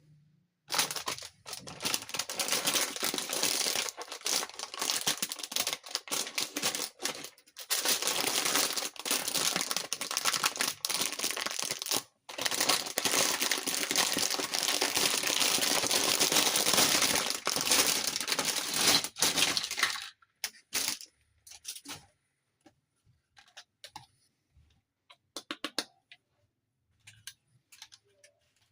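Plastic packaging crinkling and tearing as it is unwrapped: a dense, continuous rustle with two short breaks, stopping about two-thirds of the way through. Scattered light clicks and taps follow.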